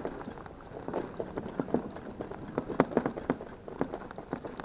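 Shetland pony trotting in harness, pulling a driving carriage: a quick, irregular run of hoofbeats and clatter.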